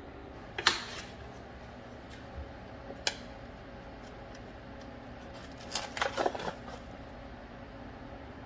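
Kitchen handling sounds: sharp knocks and a short clatter of an aluminium sheet pan against a wooden board and a wooden spatula working under the crusty focaccia to lift it out. The loudest knock comes about a second in, a lighter one about three seconds in, and a quick run of clatters and scrapes about six seconds in, over a low steady hum.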